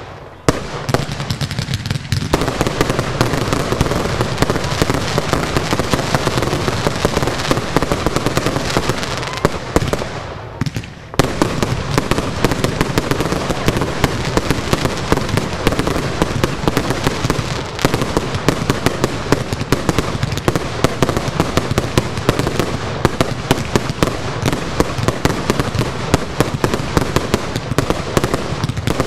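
Aerial fireworks in a continuous finale barrage: rapid bangs overlapping with crackling, with a brief lull about ten seconds in before the firing starts again suddenly.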